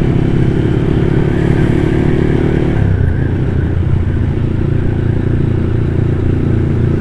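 Motorcycle engine running while riding along, with the engine note dropping to a lower pitch about three seconds in.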